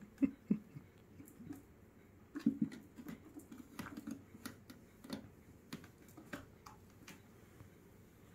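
Irregular soft thumps, scratches and clicks of cats' paws and claws on a carpet-covered cat tree as a kitten scrambles about its cubby and step, the loudest knocks just after the start and about two and a half seconds in.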